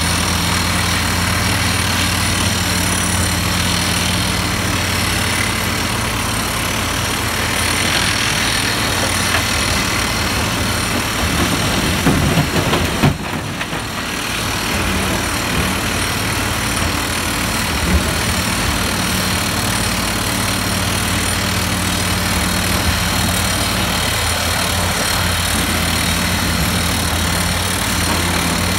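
Komatsu PC350 excavator's six-cylinder turbocharged diesel engine (SAA6D114E-3) running steadily. About twelve seconds in, a loud clatter as rock drops from the bucket into the dump truck's steel bed.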